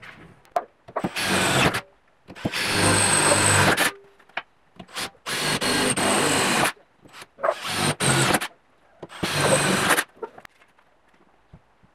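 Electric drill running in five short bursts, about a second each, as it bores holes through metal; some bursts carry a high whine.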